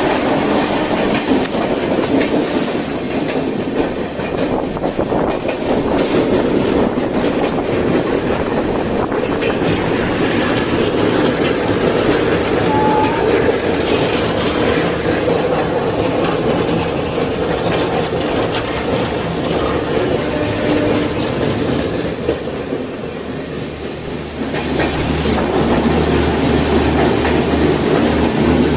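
Train running, with a steady rumble and the clatter of its wheels on the rails; it dips briefly near the end, then comes back with a low hum.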